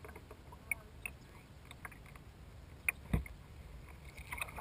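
Small water sounds around a plastic kayak hull on calm water: scattered light ticks and splashes, with one louder knock about three seconds in.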